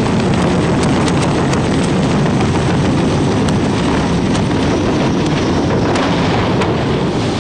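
Loud, steady rushing roar of a CH-46 Sea Knight tandem-rotor helicopter's rotors and wind on the microphone as the helicopter rolls off the deck and goes into the sea, with scattered sharp clicks.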